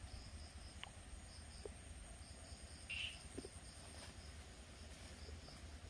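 Faint chorus of night insects such as crickets: a steady high trill with a regular pulsed chirp a few times a second beneath it. A brief, louder chirp-like sound stands out about three seconds in.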